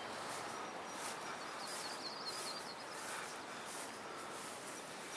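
Outdoor ambience with a steady faint hiss and soft swishing steps through grass, and a short run of high bird chirps about two seconds in.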